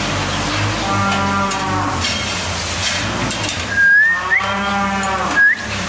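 Holstein dairy cows mooing, two long moos over the steady low running of a tractor engine. Two short, high, rising squeaks, just before the second moo and at its end, are the loudest sounds.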